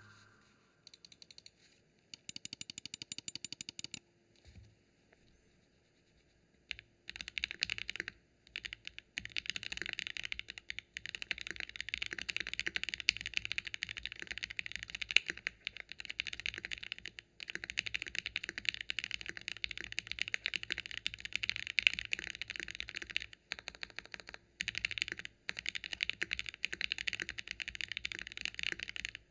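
KBDfans Phase One 65 mechanical keyboard with Gateron Oil King linear switches, GMK keycaps and an aluminium plate, case foam fitted, being typed on. A few scattered keystrokes and a quick run of repeated key presses come in the first four seconds, then continuous fast typing from about seven seconds in, broken by a few short pauses.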